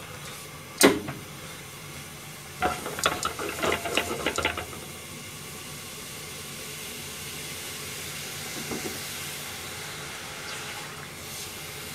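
Liquid bubbling and hissing in an aluminium pan on a gas burner, a steady hiss that grows slightly stronger. A click about a second in and a short run of metal clinks and knocks of utensils against pans a few seconds in are the loudest sounds.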